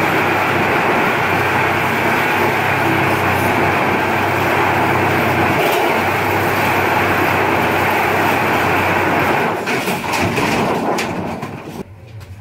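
Power saw cutting steadily through the sheet-metal body of a Volkswagen bus, loud and unbroken for most of the time. Near the end the cutting stops, there are a few sharp metal knocks as the body separates, and it goes quieter.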